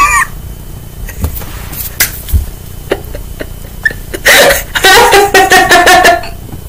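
A woman laughing: soft breathy giggles and catches of breath, then a higher-pitched giggle in quick bursts about four seconds in.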